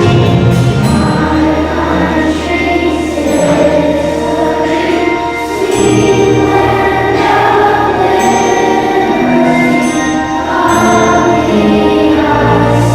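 A choir singing with orchestral accompaniment, loud and continuous.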